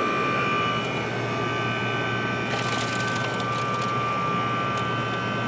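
1981 Emerson Quiet Kool 18,000 BTU window air conditioner running just after start-up, its compressor and fan going together: a steady hum under a few thin, steady high tones. A brief crackling comes about two and a half seconds in. The compressor is building head pressure, and the owner finds it sounds amazing.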